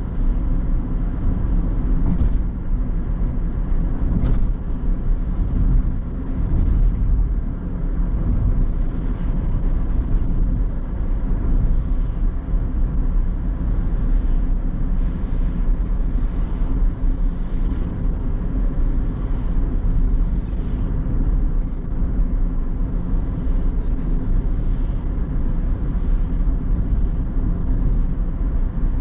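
A car driving at a steady pace: continuous engine and tyre-on-road rumble, with a couple of faint ticks early on.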